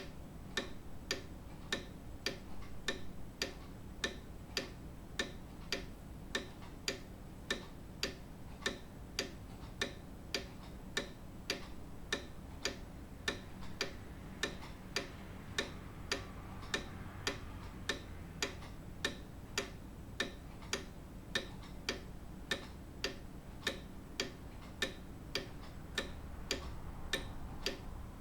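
Grandfather clock ticking steadily, with sharp, evenly spaced ticks a little under two a second.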